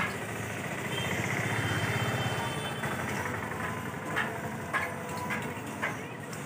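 A motor vehicle engine running, its low rumble swelling about two seconds in and then easing off, with a few short sharp clicks in the second half.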